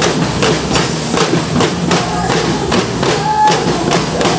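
Percussion band of drums playing a quick, steady beat of sharp strikes, several a second.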